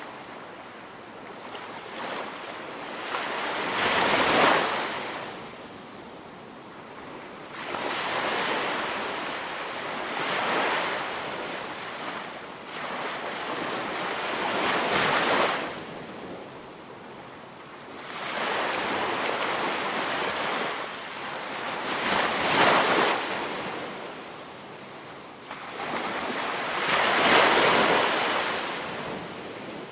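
Ocean waves breaking and washing up a tropical beach, a wave surging in every four to six seconds and then drawing back. There is some wind on the air.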